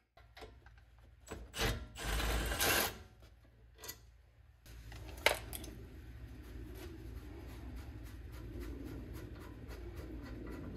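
A cordless power tool whirs for about a second, then a few sharp metallic clicks. After that comes a steady low hum with a run of light, evenly spaced clicks as a rear brake caliper is worked on.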